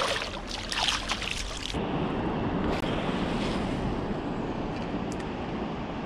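Water splashing as a released asp kicks away from a hand at the water's edge, several splashes over the first couple of seconds. Then a steady rush of wind and river water.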